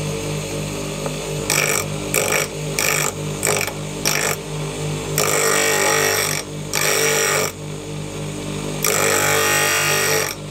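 Bench grinder running with a steady hum while a twist drill bit, held in a sharpening jig, is pressed against the white grinding wheel to sharpen its cutting edge: several short grinding scrapes from about a second and a half in, then two longer grinding passes.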